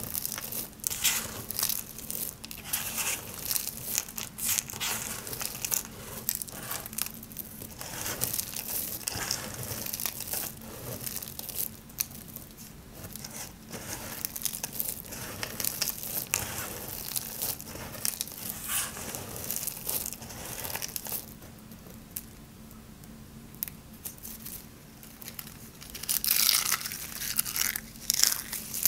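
Dry, hard soap curls and shavings being raked and crushed by hand, a dense crackly crunching and rustling of brittle flakes. It eases to a quieter rustle past the middle, then turns loud again near the end as handfuls of flakes are squeezed.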